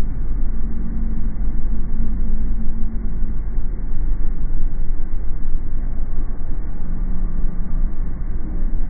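A car's road and engine noise while driving: a steady low rumble. A faint hum runs through the first few seconds and comes back near the end.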